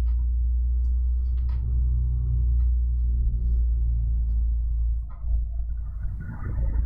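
A steady low hum with scattered light clicks and knocks, and a louder rustle near the end. This is the handling noise and hum of a webcam microphone that has just been switched in while the camera is being set up.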